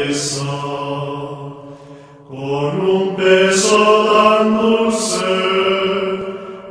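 Gregorian chant sung by men's voices: long held notes stepping slowly up and down in pitch, with a short breath pause about two seconds in.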